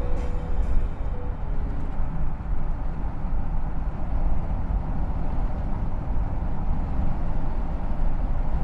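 Steady low rumble of road and wind noise from a car driving along.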